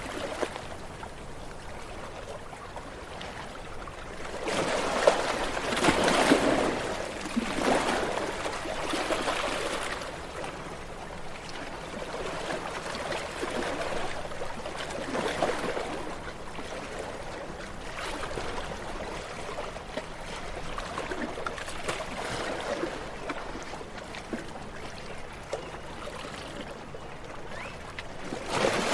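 Ocean waves washing onto a shore: a steady rush of surf that swells and falls back every few seconds, with a louder break about five seconds in.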